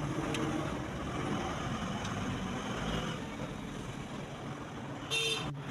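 Street traffic noise, with a vehicle horn tooting briefly near the end.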